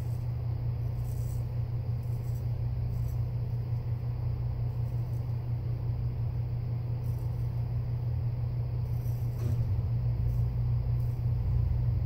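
A steady low hum that grows a little louder about ten seconds in.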